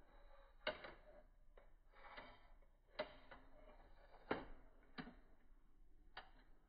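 Near silence with about six faint, irregularly spaced clicks.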